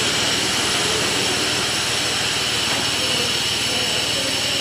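A 1000 mm bubble film making machine running, a steady mechanical noise with a few steady high-pitched whines over it.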